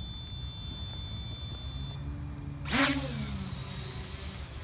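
Traxxas Aton quadcopter's motors and propellers spinning up for takeoff. Its rush and whine comes in suddenly about two-thirds of the way in, over a steady low rumble.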